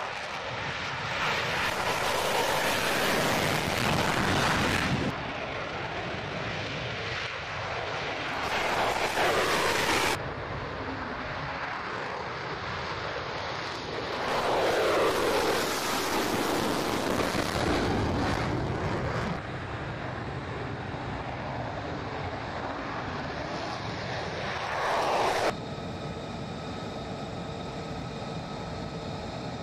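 Jet engine noise of F-35A Lightning II fighters, their single Pratt & Whitney F135 engines at high power for takeoff and climb-out, in several clips joined by abrupt cuts. The noise swells and sweeps down in pitch as each jet passes. Near the end it drops to a quieter, steady jet hum with faint steady tones.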